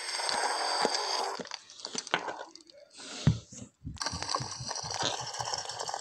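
Crackling, hiss-like noise with many scattered clicks, thinning out in the middle, with a low thud about three seconds in before the crackling comes back.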